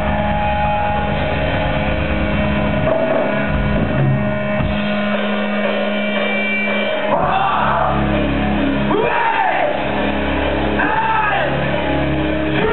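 Live rock band playing loud through the PA, recorded from the audience: held electric guitar chords over bass and drums, with sliding, wailing pitched lines coming in about seven seconds in.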